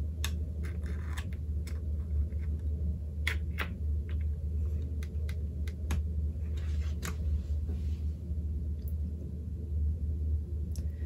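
Scattered light clicks and taps as a USB cable is plugged into a NuPhy Air75 V2 keyboard and the keyboard is handled, over a steady low hum.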